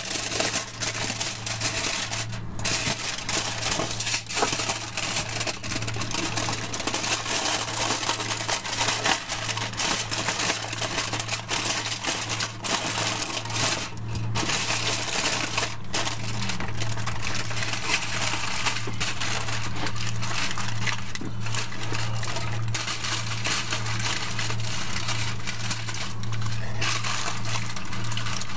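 Aluminium foil crinkling and rustling as it is lifted, folded and pressed to roll up a meatloaf, with a few short pauses, over a steady low hum.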